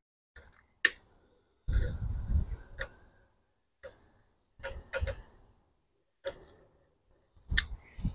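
Several sharp clicks of a long-reach utility lighter's trigger, a couple of seconds apart, mixed with short bursts of knocking and rustling as the lighter is worked against a cast-iron hibachi grate to light lighter-fluid-soaked charcoal.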